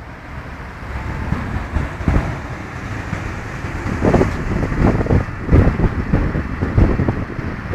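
Road traffic passing on a street, with wind buffeting the microphone in irregular gusts.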